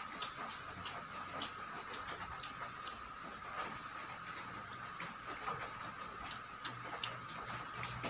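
Close-up chewing and mouth sounds from someone eating a rice meal: many small, irregular wet clicks and smacks.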